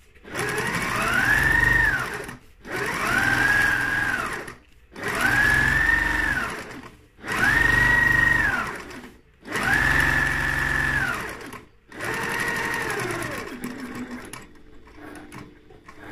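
Janome sewing machine stitching in six short runs of about two seconds each, its motor whine rising as it speeds up and falling as it slows. In the brief pauses between runs the needle is left down and the fabric turned to follow the curve around an eyelet ring. The runs end about two seconds before the close, leaving a few soft clicks.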